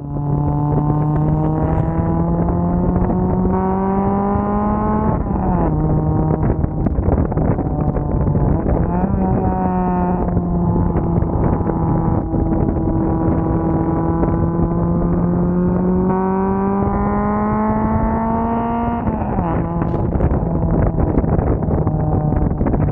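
Straight-piped Nissan SR20 four-cylinder engine with variable valve lift (VVL) pulling under load while driving: the engine note climbs steadily with revs, drops suddenly at a gear change about five seconds in, holds fairly steady at cruise, then climbs again and drops at a second shift near the end.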